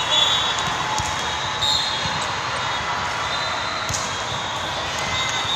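Volleyball rally in a large, echoing multi-court hall: a steady din of crowds and play from many courts, with sharp ball contacts and bounces and a few short whistle blasts.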